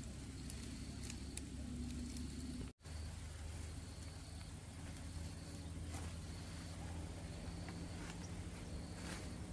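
Outdoor ambience: a steady low hum with an insect chirping on and off, and faint clicks and rustles of pumpkin vine stems being snapped and handled. A brief gap about three seconds in.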